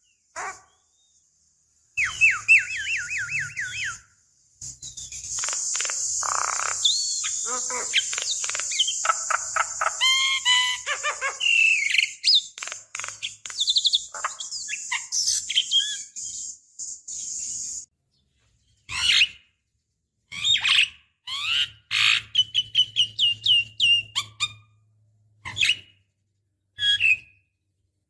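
Javan myna singing: a varied run of whistled notes, rapid repeated chatter and a long harsh rasping stretch, in phrases broken by short pauses.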